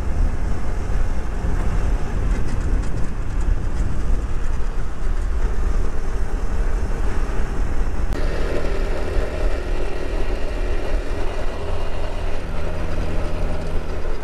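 Daelim Citi 100 underbone motorcycle's small two-stroke single-cylinder engine running under way, with heavy wind rumble on the microphone. The engine note changes about eight seconds in.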